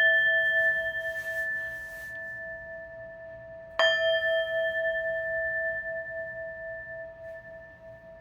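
Brass Tibetan singing bowl struck with a mallet and left to ring. It is struck a second time about four seconds in, and each time the tone dies away slowly with a wavering, pulsing hum.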